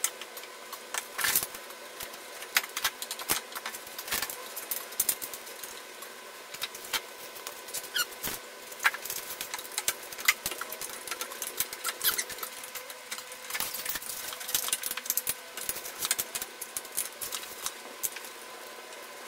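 Quick, irregular clicks and light taps with a few brief squeaks, from hands working the front suspension parts inside a Volkswagen CC's wheel well, over a faint steady hum.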